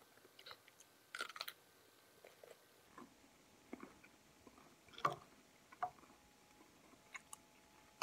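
Someone chewing raw cucumber: short, scattered crunches, quiet overall, the loudest about five seconds in.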